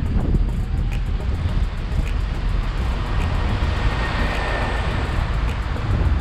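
Wind noise on the microphone of a moving bicycle, with the sound of a passing engine swelling and fading about four seconds in.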